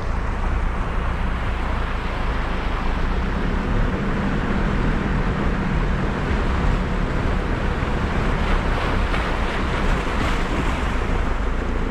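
Nissan GU Patrol's turbo-diesel engine running at a low crawl through a shallow, rocky river crossing, with water splashing around the wheels; the splashing grows louder in the last few seconds as the vehicle climbs out of the river.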